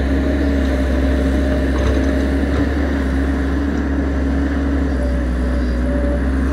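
XCMG XE135B hydraulic excavator's diesel engine and hydraulics running steadily under load as it digs and swings its bucket through loose earth, with a steady hum and a held whine.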